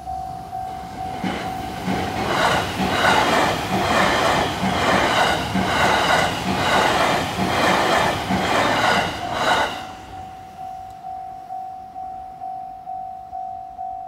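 Japanese level-crossing warning bell ringing at about two strikes a second. About two seconds in, an electric train passes over the crossing, its wheels clattering rhythmically over the rail joints and covering the bell. The train's noise drops away just before ten seconds, leaving the bell ringing alone.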